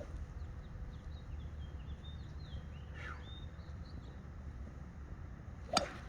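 Faint birdsong of short repeated chirps over a steady low outdoor rumble, then one sharp click near the end, fitting a golf club striking the ball on a topped tee shot.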